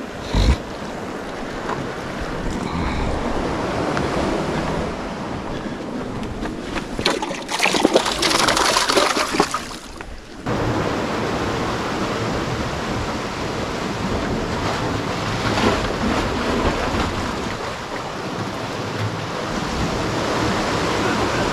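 Sea surf washing against a rocky shore, a steady rushing wash, with wind on the microphone. A short knock comes right at the start, and a louder stretch of scraping and knocking comes from about seven seconds in and stops suddenly near ten seconds.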